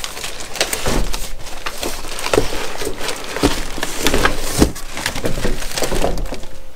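A cardboard box being slid off a plastic-wrapped radio: cardboard scraping and creaking against the crinkling plastic wrap, with many small knocks and clicks.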